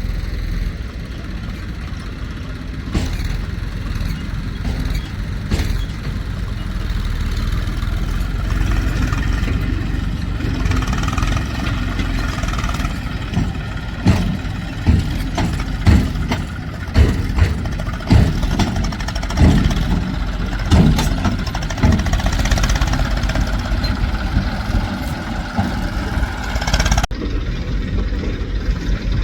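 Diesel engine of heavy farm machinery running steadily, with a run of irregular thumps and knocks through the middle.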